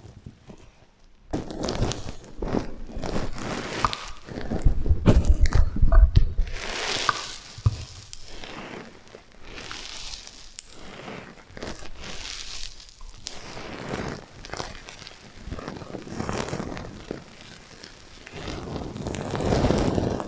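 Sequins on a sequin pillow being rubbed and flipped by hand, an irregular scratchy crunching with an echo effect on it. It is loudest about five seconds in, with heavy thuds of handling.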